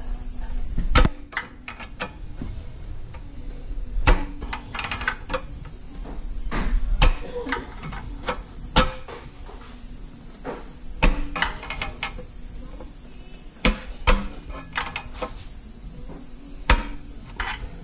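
Hand-tool work on a car's underside: a dozen or so sharp metallic knocks and clanks, spaced irregularly.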